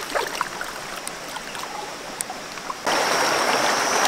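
A fish flapping in shallow water over stones makes a few small, scattered splashes. About three seconds in this cuts suddenly to the louder, steady rush of a shallow rocky stream with small cascades, with a thin, steady high tone over it.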